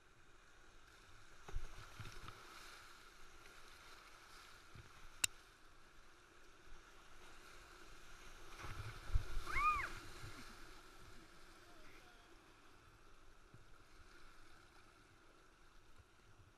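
River rapids rushing and splashing around a whitewater kayak as it is paddled through, with heavier bumps and splashes about one and a half seconds in and again around nine seconds. A sharp click about five seconds in, and a brief rising-then-falling call near ten seconds.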